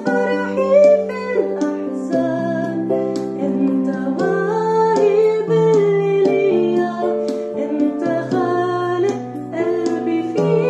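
A woman singing an Arabic-language worship song over plucked-string accompaniment with a light steady beat.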